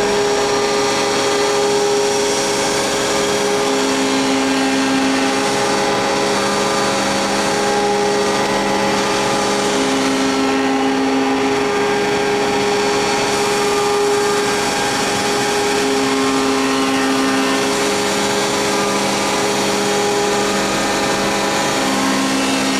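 ABA surface grinding machine running with a steady machine hum made of several held tones. An extra tone cuts in for about two seconds roughly every six seconds, a regular cycle of the machine's working motion.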